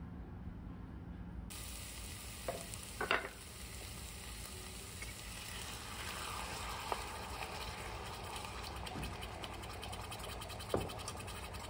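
Food sizzling steadily in a hot pan, starting suddenly, with a few light knocks of utensils against the pan, the loudest about three seconds in.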